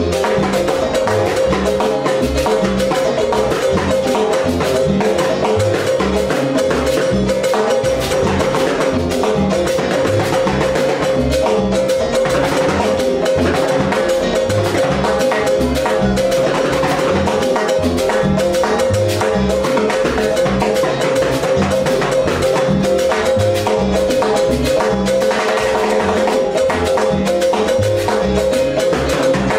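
Salsa timbales solo played with sticks: fast, dense strokes on the two hammered-steel drums and their shells, mixed with hits on a mounted plastic jam block.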